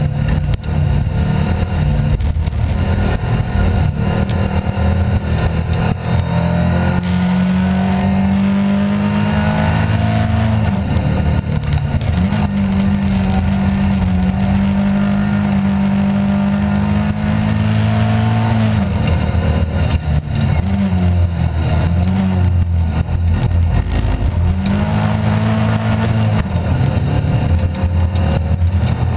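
Rally car engine heard from inside the cabin, run hard at high revs along the stage. The revs drop and climb again a few times as the driver lifts or changes gear.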